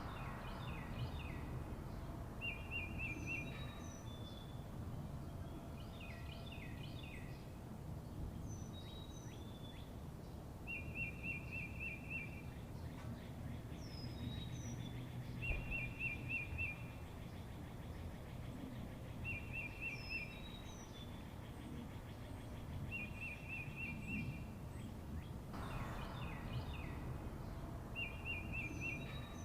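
Birds singing: one repeats a short, rapid trill every few seconds, while others give high, falling whistles and clusters of chirps, over a steady low background rumble.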